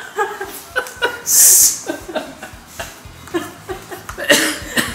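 Men laughing in short, irregular bursts, with a loud breathy hiss about a second and a half in.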